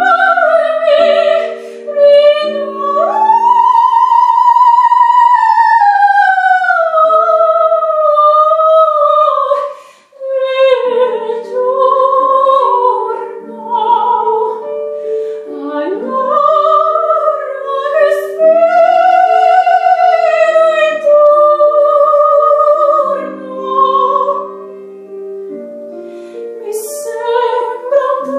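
A woman's operatic voice singing with wide vibrato over piano accompaniment, holding long high notes, with a short breath break about ten seconds in.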